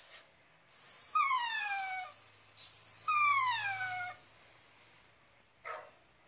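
A dog crying twice through a smartphone's small speaker: two long calls, each about a second and a half and falling in pitch, then a short quieter sound near the end.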